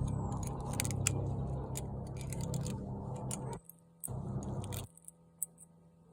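Small clicks and scrapes of a bucket-lid opener used as snap-ring pliers on a front-hub snap ring, over a steady low hum. The sound cuts out briefly about three and a half seconds in and again for the last second or so.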